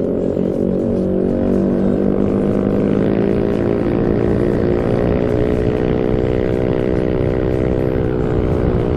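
Yamaha NMAX scooter's single-cylinder engine, breathing through an AHM aftermarket exhaust, under hard acceleration. The exhaust note rises in pitch over the first second or two, then holds at a fairly steady pitch while road speed keeps climbing, as the CVT does its work.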